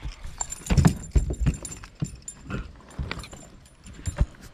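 Handling noises in a boat: irregular knocks, thumps and clothing rubbing on the microphone as a caught fish is lifted aboard and grabbed, with the rod knocking about.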